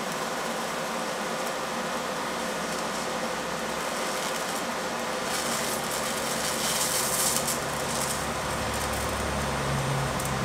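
TIG welding arc hissing steadily as bronze filler is laid onto a cast-iron engine cylinder, building up a cracked cooling fin. The hiss grows brighter and slightly louder from about halfway through.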